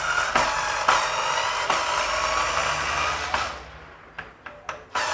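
Cordless power screwdriver running in a long, steady whirring burst while backing out the screws of a pressure washer's housing. It stops about three and a half seconds in, a few clicks follow, and it starts whirring again just before the end.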